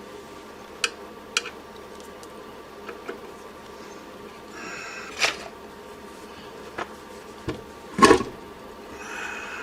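Hand tools working on a variac's solid steel case as it is taken apart: scattered sharp clicks and small knocks, brief scraping about five seconds in and again near the end, and a louder knock about eight seconds in.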